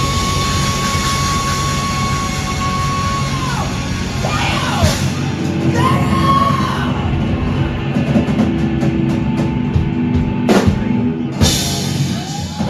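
Live heavy rock band playing out the end of a song: a long held high note that bends down, then a fast run of drum and cymbal hits closing in a couple of big final crashes.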